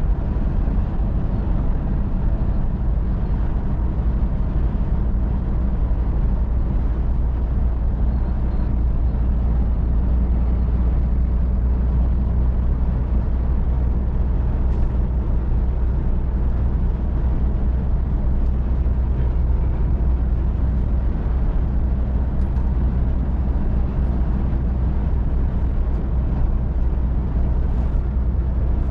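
Scania R450 truck's 13-litre straight-six diesel running steadily at motorway cruising speed, a low even hum heard inside the cab over a steady rush of road and wind noise.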